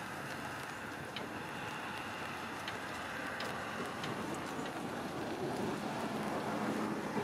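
Crinkling and rustling of a foil crisp bag being pulled and rummaged by a monkey, over a steady outdoor background noise, with a few faint short high ticks.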